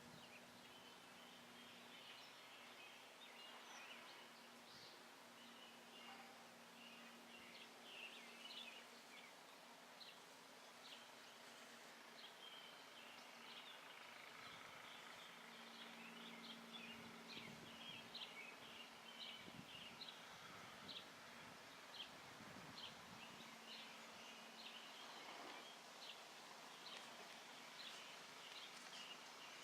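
Near silence outdoors, with faint high bird chirps repeating throughout.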